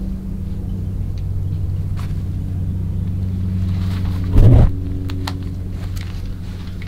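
A motor running steadily with a low hum, and a loud thump about four and a half seconds in.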